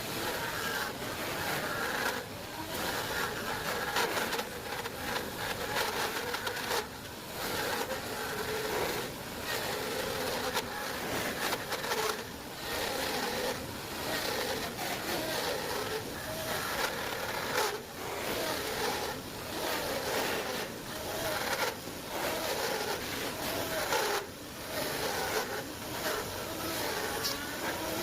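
Power tool cutting a groove in wood, its pitch wavering with the load and easing off briefly every couple of seconds.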